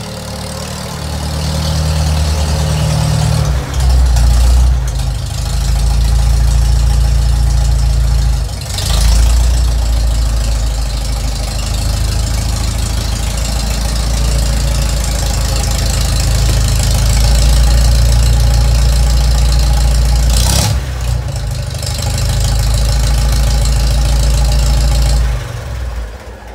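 1946 Farmall M tractor's four-cylinder engine running loud as the tractor is driven and parked, its note shifting a few times. It is shut off near the end and dies away.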